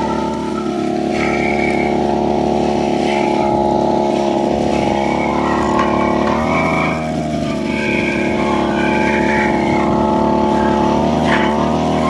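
Brush cutter engine running steadily at working speed while it drives a weeding blade, its pitch dipping briefly about halfway through and again near the end.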